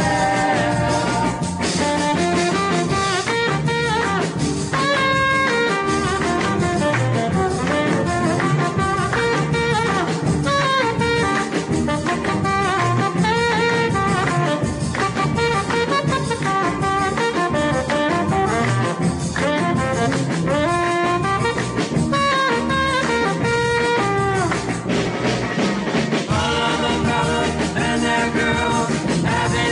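Song playing from a 45 rpm vinyl single: a band with horns and a drum kit.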